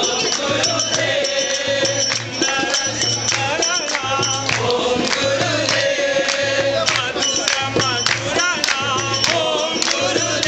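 Devotional group singing with jingling hand percussion and a steady low pulsing beat.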